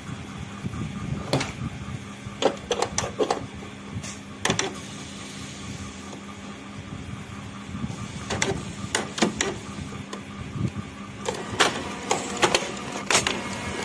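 Canon PIXMA iP2770 inkjet printer starting a print job: a steady motor hum with clusters of sharp mechanical clicks and clacks as the print-head carriage and paper feed move.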